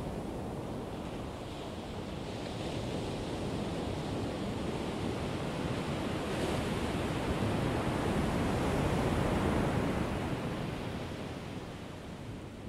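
Ocean surf: a steady wash of breaking waves that builds over several seconds and eases off near the end.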